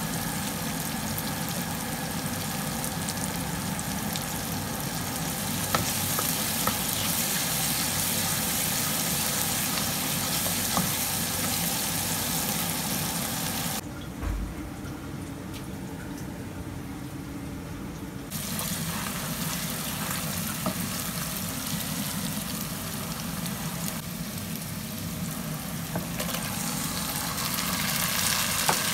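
Onions, chillies and baby tomatoes frying and sizzling in a non-stick pan, stirred with a wooden spatula that scrapes lightly now and then. The sizzle falls away for about four seconds midway, then comes back with raw chicken pieces frying in the pan.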